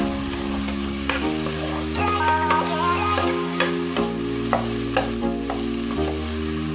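Diced potatoes and corned beef frying in a pan, sizzling, while a metal spoon stirs them and scrapes and clicks against the pan. Sustained background music notes play underneath, changing every second or two.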